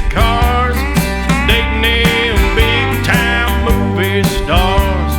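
Country music with guitars and a steady beat, an instrumental stretch between sung lines.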